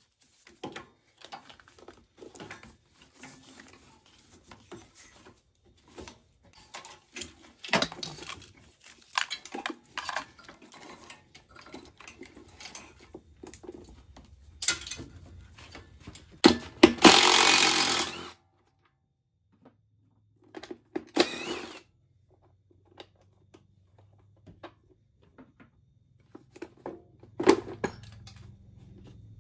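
Hand tools and parts clinking and knocking on a stripped ATV frame during teardown. A cordless power tool runs loudly for nearly two seconds about halfway through, with a shorter burst a few seconds later.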